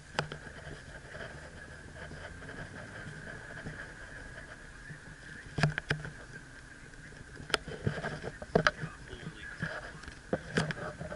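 Interior of a moving car: steady low road and engine noise, with a few sharp clicks and knocks scattered through it, most of them in the second half.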